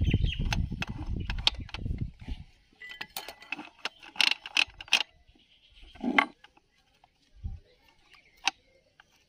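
Metal clicking and clinking as the gear parts of a partly assembled Hero Splendor Plus engine are turned by hand to check whether the gears engage. A dense stretch of handling in the first couple of seconds is followed by scattered sharp clicks and a few knocks.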